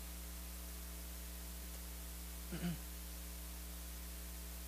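Steady electrical mains hum with a faint hiss on the recording, and one brief vocal sound, a short murmur, about two and a half seconds in.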